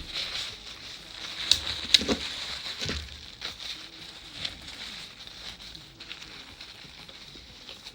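Kitchen handling noises: a few sharp clicks and knocks over a faint steady hiss.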